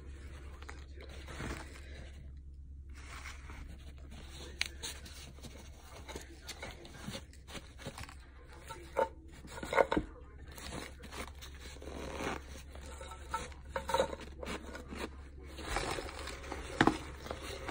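Fingers picking through a plastic cup of powdered starch and crunching chunks of it: scattered short crunches, scrapes and crackles, louder about halfway through and near the end, over a faint low hum.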